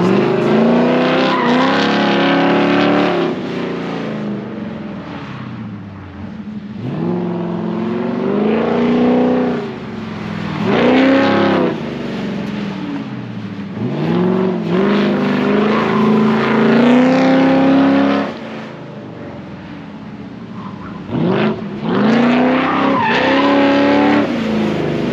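A pro-touring Ford F100 pickup's engine revving hard and easing off about five times as the truck is driven around, its pitch climbing and dropping with each surge.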